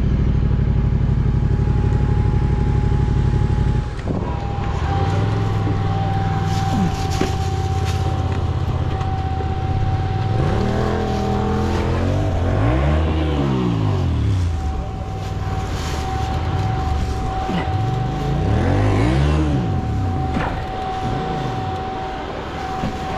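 Yamaha Ténéré 700's parallel-twin engine running steadily, easing off about four seconds in, then revving up and back down in two swells as the bike is worked over rough off-road ground. A thin steady whine runs underneath.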